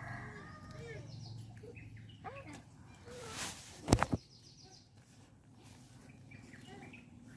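Scissors snipping leafy vegetable shoots, with two sharp clicks about four seconds in. Faint short chirps sound in the background.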